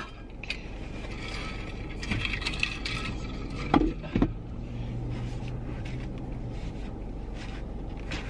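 Paper napkins rustling as hands and clothes are wiped clean, over a steady low hum in a car cabin. There are two brief louder sounds about four seconds in.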